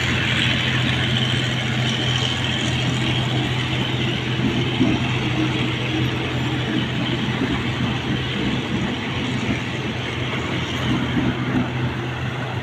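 GE GEK-class diesel-electric locomotive No. 4016 running steadily, with an even low engine hum.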